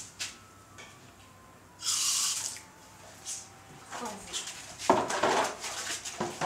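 Water splashing in a plastic basin as hands scoop and stir it, in short irregular bursts that are densest over the last two seconds, with a brief hiss of water about two seconds in.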